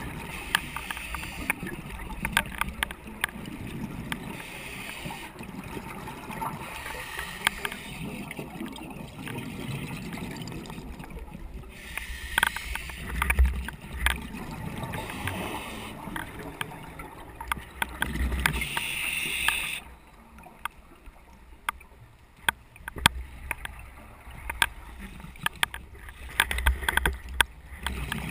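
A scuba regulator breathing underwater, with hissing inhalations alternating with rumbling bursts of exhaled bubbles every few seconds. A loose camera rattles in frequent small clicks throughout.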